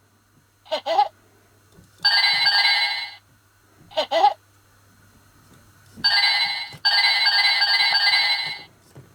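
Electronic jingle tones in two bursts, a short one about two seconds in and a longer one about six seconds in, each with a bright warbling trill like a ringtone. Short squeaky sliding cartoon-like calls come before each burst.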